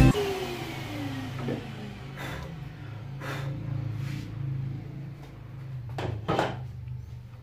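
Makita plunge-cut track saw winding down after being switched off, its whine falling over about a second and a half, over the steady hum of the shop vacuum that extracts the saw's dust. A few hollow knocks follow as the cut drawer-side board is lifted and handled on the saw table.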